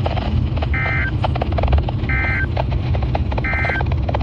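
Three short bursts of Emergency Alert System end-of-message data tones, each about a third of a second and about 1.3 s apart, marking the close of the weather-radio warning. They sound through heavy radio static with a steady rumble and crackle.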